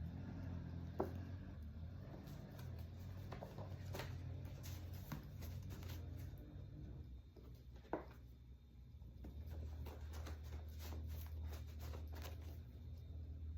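Tarot cards being handled: scattered light clicks and two sharper snaps, about a second in and near eight seconds, over a steady low hum.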